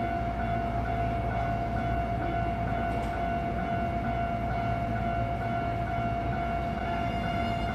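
Hankyu 1000 series electric train standing at the platform, giving off a steady high-pitched electrical whine over a low hum.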